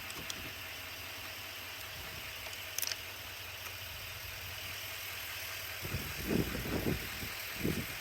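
Steady background hiss with two faint clicks, then wind buffeting the microphone from about six seconds in.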